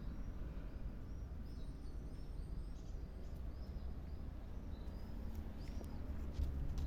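Small birds chirping, a run of short chirps one after another, over a steady low outdoor rumble. A few crisp clicks come in near the end.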